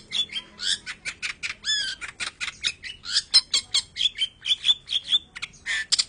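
Long-tailed shrike (cendet) singing a fast, unbroken string of short harsh chirps and squawks, about five notes a second, with a few whistled notes that rise and fall.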